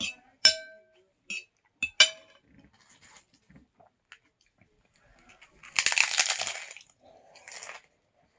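A utensil clinks against dishware three times, each with a short ring. Then, about six seconds in, a hard taco shell cracks and crunches for about a second, followed by a quieter crunch.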